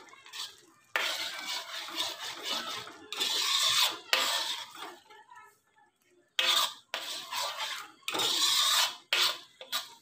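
A steel ladle stirring thick curry gravy in a steel kadhai, scraping and clinking against the pan. The stirring stops for about a second and a half halfway through, then starts again.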